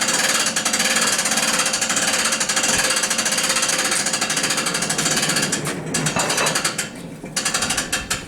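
Home-made bandsaw mill running and cutting through a beech log: a loud, fast, even mechanical rattle that dips briefly twice near the end.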